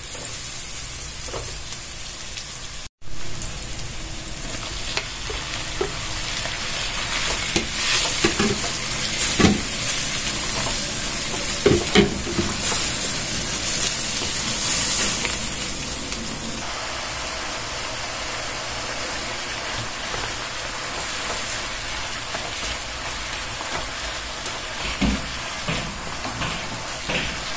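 Onions and sliced meat sizzling in butter in a wok, with a steady frying hiss, stirred with a wooden spatula. A few sharp knocks and scrapes of the spatula against the pan come about 8 to 12 seconds in, and again near the end.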